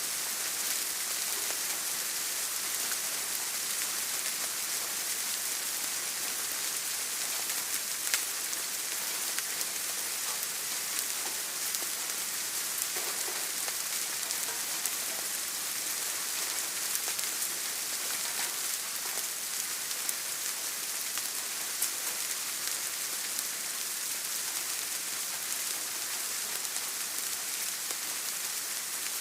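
Steady rain: an even hiss with scattered sharper ticks of single drops.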